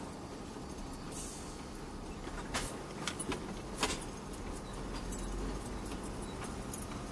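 Inside a Volvo VM truck's cab on a rough dirt road: a steady diesel engine rumble with cab and interior fittings rattling, and a cluster of sharp clicks and knocks from about two and a half to four seconds in as the cab jolts over bumps.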